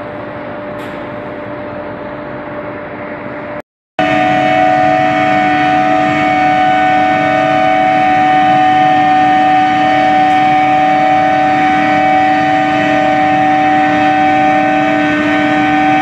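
Billet induction heating furnace running, its coils giving off a steady hum made of several held tones. A quieter hum of the same kind cuts out a few seconds in, and after a brief gap a louder one takes over.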